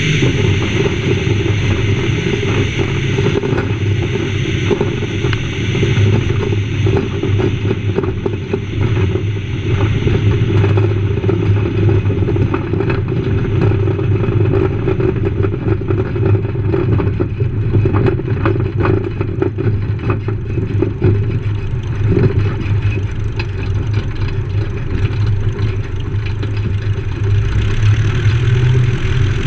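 7ECA Citabria's piston engine and propeller running steadily while the plane taxis over a grass strip, with frequent rattles and clatter from the airframe rolling over rough turf.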